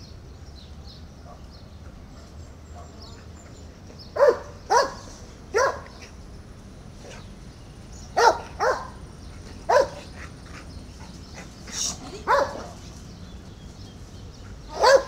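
Cimarrón Uruguayo dog barking: about eight short, sharp barks, singly and in pairs, spread through the clip.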